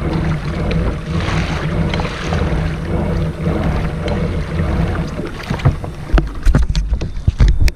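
Pedal-drive fishing kayak under way on open water: a steady low rumble of the hull and drive through the water, with wind on the microphone. From about six seconds in, sharp knocks and thumps as the camera mount is handled.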